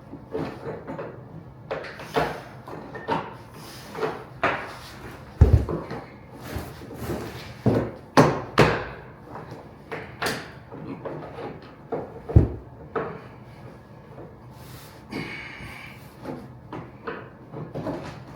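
Irregular knocks, clicks and scrapes of hand work on vinyl plank flooring, with two heavier thuds about five and a half and twelve seconds in.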